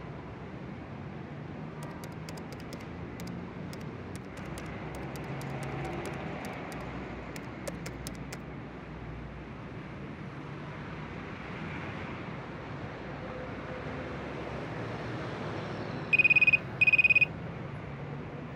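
Laptop keyboard keys clicking in short runs of typing over steady traffic noise. Near the end a mobile phone gives two loud keypad beeps, about half a second each.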